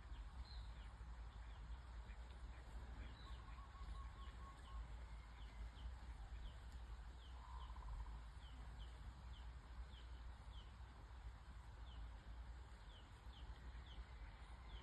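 Faint bird calls: a short, high, falling chirp repeated irregularly about twice a second from a few seconds in, with two brief buzzy notes near the middle, over a low steady rumble.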